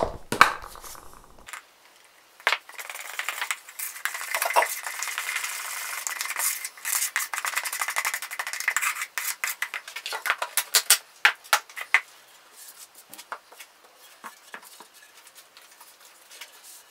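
A knife stirring and scraping a thick paste of joint filling compound in a plastic measuring cup, with many quick clicks of the blade against the cup, quickest just before the stirring stops about twelve seconds in. After that, only a few faint clicks.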